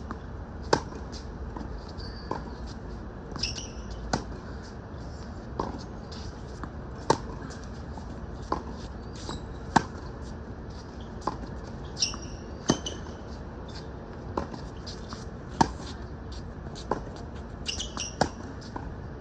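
Tennis rally: sharp pops of the ball hitting racket strings every second or so, the near player's strokes loud and the far player's fainter, over a steady outdoor hiss. A few short high squeaks come in three brief clusters.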